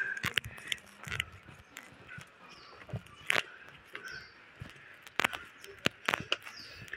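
Footsteps of people climbing concrete stairs: irregular short taps and scuffs of shoes on the steps.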